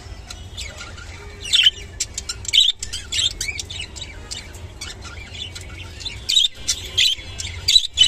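Budgerigar chirping and chattering: quick, high, twittering calls in several bunches, the loudest near the start, in the middle and near the end.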